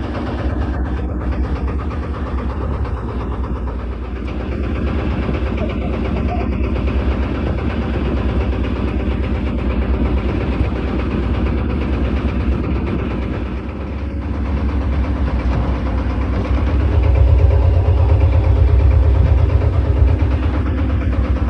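A boat's engine running steadily with a low, pulsing drone, getting a little louder about three-quarters of the way through.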